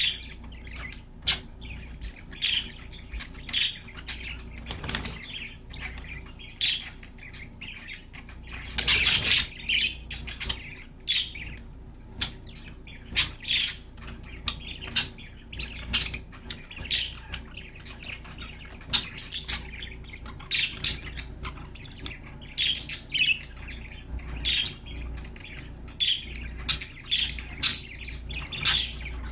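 Budgerigars chirping and chattering in short, sharp calls, with clicks in between and a louder noisy flurry about nine seconds in.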